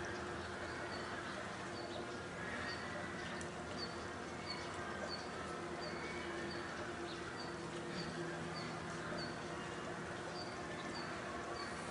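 A short, high chirp repeating steadily about twice a second over a steady low hum and background hiss.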